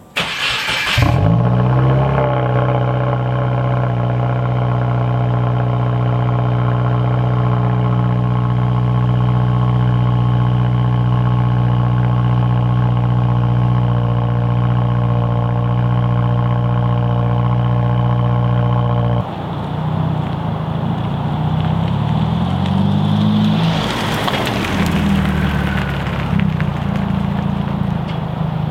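2018 Subaru WRX's 2.0-litre turbocharged flat-four, exhausting through a Nameless 3-inch axleback muffler delete, starts with a short burst about a second in, then settles into a steady cold-start idle. After a cut about two-thirds of the way through, the engine note rises and falls.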